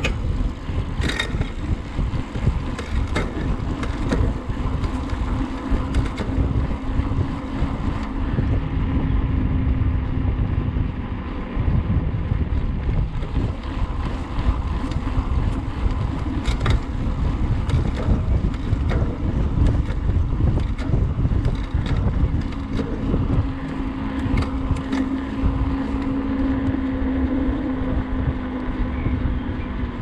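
Electric mountain bike being ridden, its rear freehub buzzing as the wheel turns, with a steady hum that comes and goes. Under it are tyre rumble, wind on the microphone and scattered knocks from the trail.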